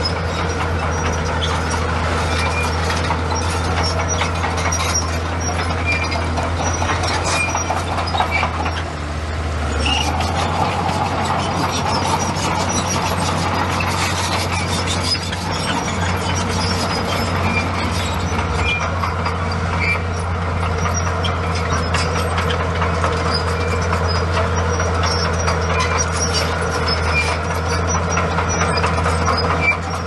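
Komatsu crawler bulldozer's diesel engine running steadily, with short high squeaks repeating irregularly over it. The engine note dips briefly about nine seconds in.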